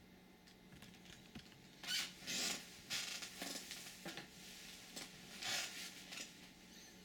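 Scratching and rustling from parts being handled by hand: several short scraping bursts over a few seconds, the loudest about two seconds in and again about five and a half seconds in, over a faint steady hum.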